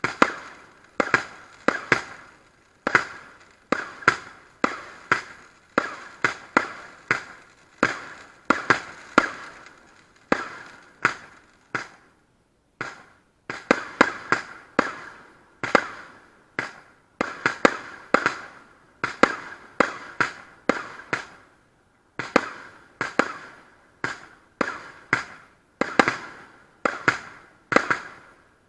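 Category F2 consumer fireworks going off in a rapid, continuous string of sharp bangs, several a second, each with a short decaying tail. The bangs pause briefly about twelve seconds in and again about twenty-one seconds in.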